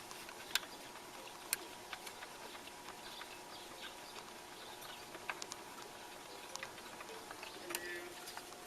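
Scattered light clicks and taps at irregular intervals from hands handling small parts of a turntable's tonearm mechanism, over a faint steady hum.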